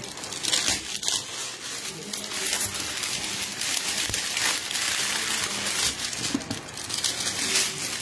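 Clear plastic wrap being peeled and crumpled off a cardboard product box, a continuous crinkling and crackling.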